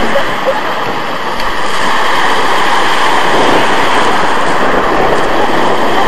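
Small sea waves breaking and washing up a pebble beach: a loud, steady rush of surf and foam that swells slightly mid-way.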